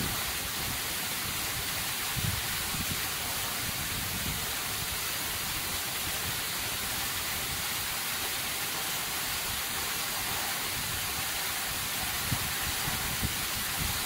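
Waterfall pouring down a sheer andesite cliff, heard from just inside the falling water: a steady, even hiss of falling water and spray, with a few faint low thuds now and then.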